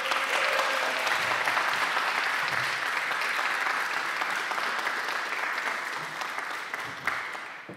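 Audience applauding steadily, the clapping thinning and dying away near the end.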